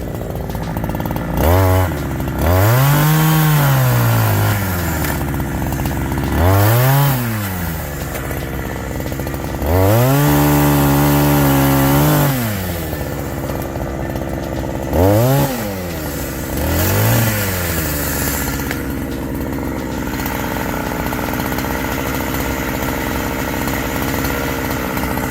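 Chainsaw revved up and let back down six times, held at full speed for about two seconds once, running steadily at a lower speed between the revs and over the last several seconds.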